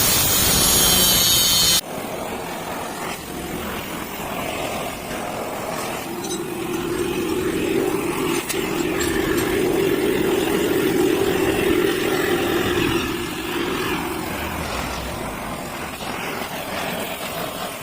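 A machine running steadily, its hum rising in the middle and easing off later, after a bright hiss that cuts off about two seconds in.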